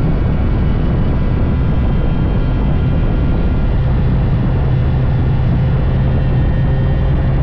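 Honda Dash 125 single-cylinder two-stroke motorcycle running steadily while being ridden, a constant low engine hum under a broad rushing noise.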